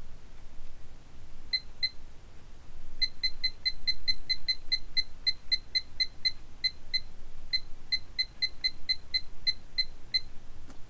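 Electronic key beeps from a Thermco ACCRT8002 temperature data logger as its high-alarm setpoint is stepped down with the buttons: two short high beeps, then a fast run of about four beeps a second that stops just before the end.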